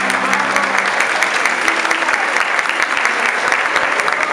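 Audience applauding steadily, many hands clapping at once, as a live jazz number ends.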